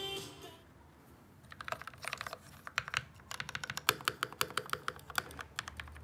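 Typing on a GMMK Pro mechanical keyboard with lubed Akko Matcha switches and DSA-profile keycaps: a quick, uneven run of keystroke clacks that starts about a second and a half in. Before it, music fades out within the first half second.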